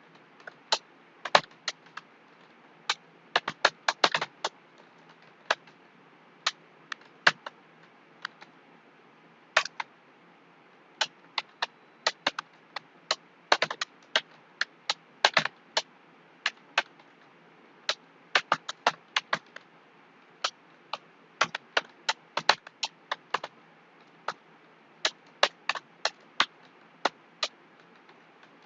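Typing on a computer keyboard: sharp keystroke clicks in irregular quick runs with short pauses between them.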